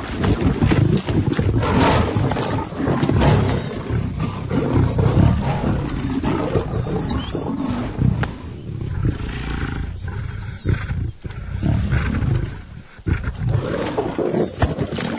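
Several lions fighting at close quarters, a near-continuous tangle of roars from more than one animal, briefly easing about thirteen seconds in.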